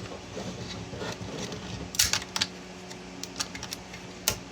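Small plastic clicks and snaps of PLA support material being picked and pried off a 3D-printed figure, with a sharper crack about two seconds in and another near the end.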